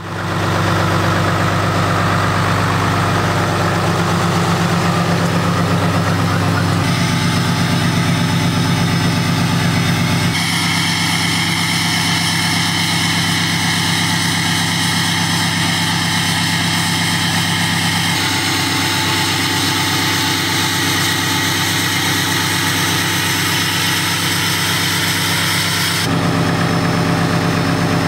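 Diesel pickup truck engines idling steadily, with the sound changing abruptly several times as one clip follows another.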